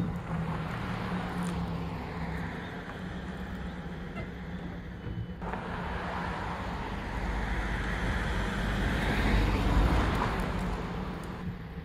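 Motor vehicle noise: a steady low hum under a rushing road noise that swells twice, the second and louder swell peaking a couple of seconds before the end.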